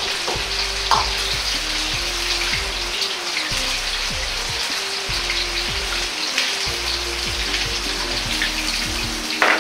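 Pieces of chicken karaage sizzling and crackling steadily in hot oil in a wok during the brief second fry, while a ladle stirs them. There is a single knock near the end.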